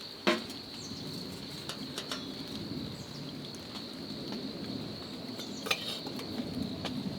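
Rain falling on a camping shelter, with scattered drops ticking and a steady faint high tone underneath. A sharp click sounds just after the start and another about three-quarters of the way through.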